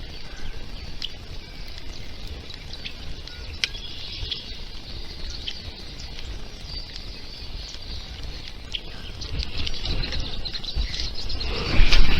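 Birds chirping and calling in short, irregular notes over a low outdoor rumble, with a louder burst of noise near the end.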